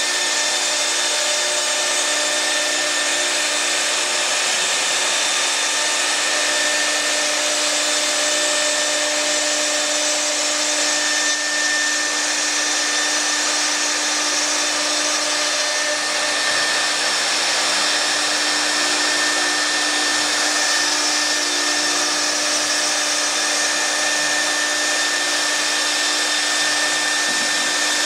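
CNC router running steadily: a high-speed spindle's constant whine over a steady rush of air.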